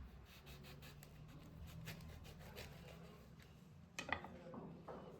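Faint scraping and rubbing with scattered light clicks, then a sharper couple of clicks about four seconds in.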